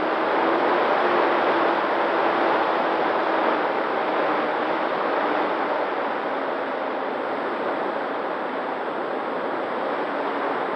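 Steady rush of wind over the onboard camera of an electric RC P-51D Mustang in flight, with a faint steady motor-and-propeller tone beneath it.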